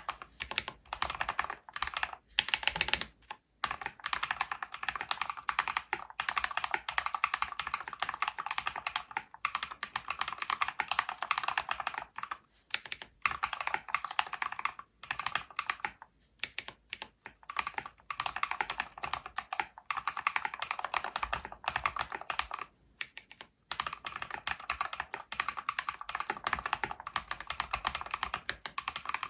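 Typing on a mechanical keyboard with Holy Panda tactile switches in a full-aluminium case: a fast, dense run of keystrokes that starts abruptly, with a few brief pauses.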